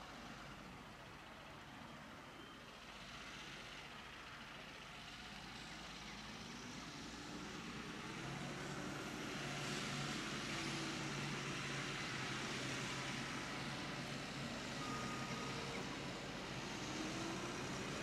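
Fendt 720 tractor's six-cylinder diesel engine running under load as it pulls a plough toward the listener, a steady low hum that grows louder about halfway through.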